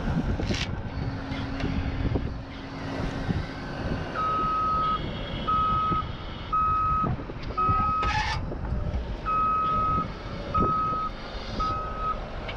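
Skid steer backing up: its backup alarm starts beeping about four seconds in, roughly once a second, over the running engine. A short sharp knock comes near the middle.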